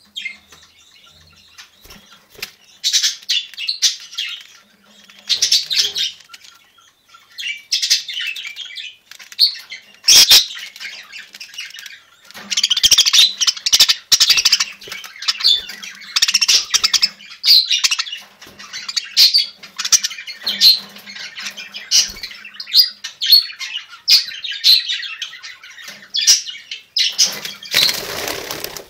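Budgerigars chattering and chirping in repeated bursts of high, rapid warbling. There is a sharp click about ten seconds in and a brief rustling noise near the end.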